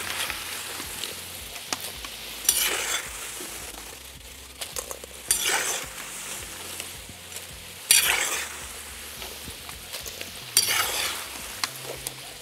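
Potato wedges sizzling in hot oil in a cast-iron kazan, with a louder surge of sizzle and scraping four times, about every two and a half seconds, as a slotted skimmer dips in and scoops them out of the oil.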